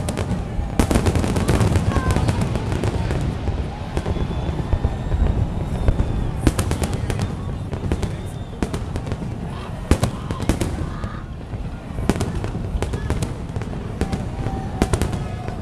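Aerial fireworks going off in a continuous barrage: clusters of sharp bangs and crackles, several a second, over a steady low din of explosions.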